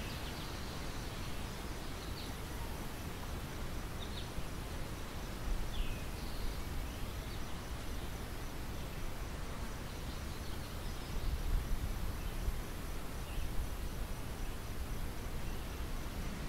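Wind blowing over a ripe wheat field, with low gusts buffeting the microphone about five seconds in and again around eleven seconds in. Scattered short, high bird chirps come through now and then.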